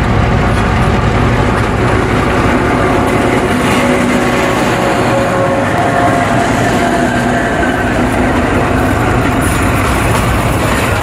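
Diesel locomotive passing close by, its engine running as it hauls a freight train, followed by enclosed double-deck car-carrier wagons rolling past on the rails.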